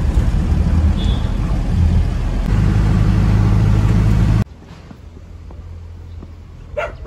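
Car engine and road noise heard from inside the cabin, a steady low rumble whose engine note rises and steadies about two and a half seconds in. It cuts off suddenly about four seconds in, leaving a much quieter outdoor background.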